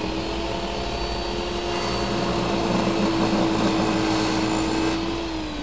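Table saw running and slowly ripping a block of dark hardwood, a steady motor hum with the blade's cutting noise. Near the end the pitch falls as the saw winds down.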